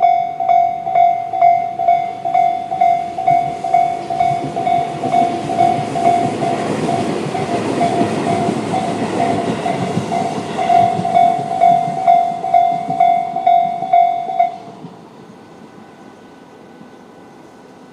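Level-crossing electronic warning bells (Tobu 'C' tone) ringing about twice a second while a Tobu 800 series electric train passes, its rushing wheel and running noise swelling up and fading in the middle. The bells stop a few seconds before the end, leaving a low background.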